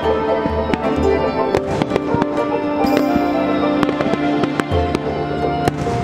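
Aerial fireworks bursting, with many sharp bangs and crackles, over music with long held notes.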